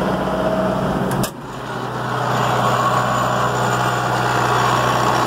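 Vehicle engine running as it is driven, a steady hum with a sharp knock a little over a second in. The engine sound dips after the knock and then builds back up.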